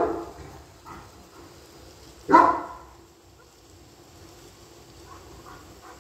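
German Shepherd barking on guard: a bark right at the start, a fainter one about a second in, and a loud one a little over two seconds in.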